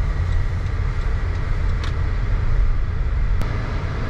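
Steady low rumble of road noise from a car being driven, with one sharp click about three and a half seconds in.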